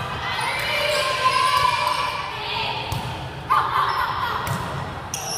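Volleyball rally in a gym: a few sharp hits of the ball, echoing in the hall, with players' voices calling.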